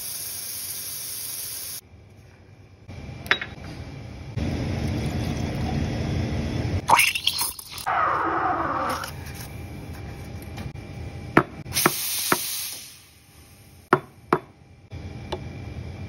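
Espresso-machine work at a café counter: the steam wand hissing and rumbling in a stainless milk pitcher, with a falling tone as the milk is steamed about halfway through. Several sharp clinks of metal pitcher and cups come near the end.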